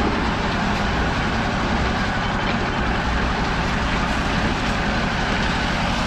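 Concrete mixer running steadily with a constant drone, its drum turning a batch of concrete mix.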